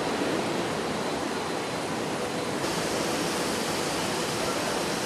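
Steady rushing noise of a factory production hall, with no distinct machine rhythm or tone; it turns slightly brighter and hissier about two and a half seconds in.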